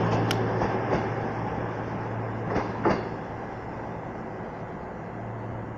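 CrossCountry Class 221 Super Voyager diesel unit at the platform: a steady low engine hum under a wash of train noise that slowly dies away, with a few short clunks.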